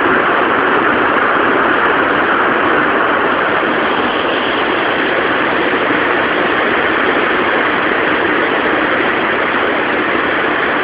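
Heavy rain pouring down in a thunderstorm: a steady, unbroken hiss of falling rain.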